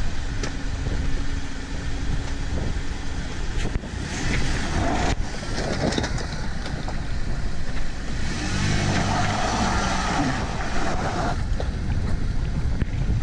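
Land Rover Defender 110 engine pulling the vehicle slowly over wet rocks, rising in revs for a couple of seconds about two thirds of the way through, with a few sharp knocks of stones under the tyres.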